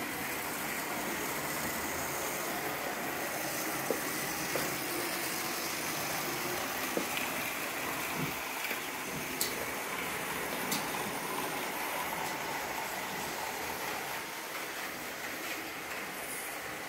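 Märklin model trains running on the layout's track: a steady running noise with a scattered handful of sharp clicks.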